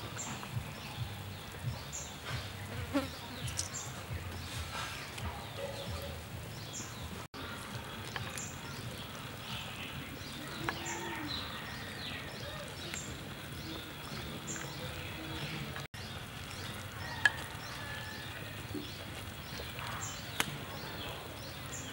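Insects buzzing, with short high chirps recurring every second or two over a low, steady background rumble. One sharp tap stands out about two-thirds of the way through.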